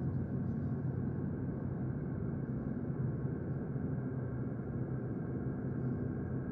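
Sci-fi ambience: a steady, deep humming drone with a soft hiss over it, unchanging throughout.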